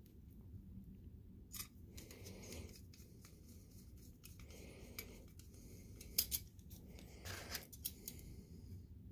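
Faint small metallic clicks and scraping as a screwdriver turns screws into the metal clamp of a projector lamp housing, with two sharper clicks about six seconds in.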